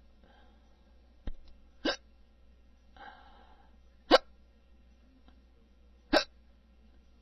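Hiccups: three sharp, loud ones about two seconds apart, with a short faint click a little over a second in and a soft breathy sound between the first and second hiccup.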